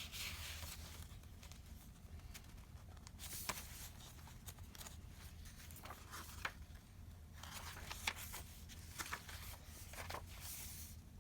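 Paper rustling and light clicks and taps as junk-journal pages, tags and cards are handled and turned, in a few short bursts.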